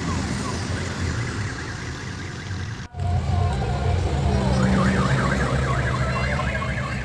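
Odong-odong tour vehicles driving past with their engines running, broken by a brief dropout about three seconds in. From about four and a half seconds a fast warbling, siren-like electronic horn sounds over the engines.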